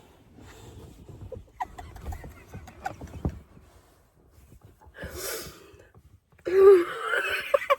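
Rustling and light knocks of someone shifting about in a tent, then a heavy breath about five seconds in and loud straining, gasping vocal noises near the end.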